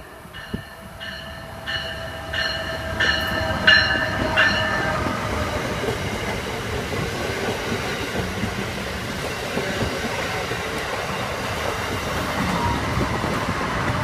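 Amtrak Northeast Regional passenger train, hauled by Siemens ACS64 electric locomotives, passing by. Over the first few seconds there is a run of evenly spaced ringing clanks, about three every two seconds, then the steady rumble and rush of the cars going by.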